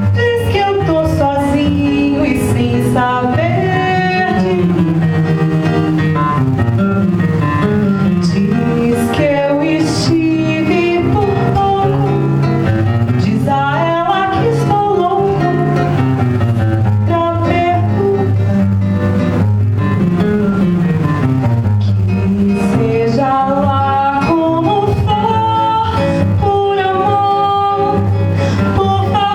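Nylon-string acoustic guitar (violão) playing a Brazilian song, with a melody line gliding and bending in pitch over the plucked chords.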